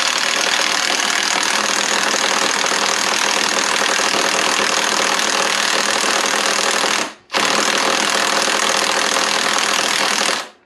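Cordless impact gun hammering hard as it drives in the centre bolt of a flywheel puller against a Suzuki SV1000's alternator rotor, which stays stuck on the nose of the crank. The gun stops briefly about seven seconds in, then hammers again and stops just before the end.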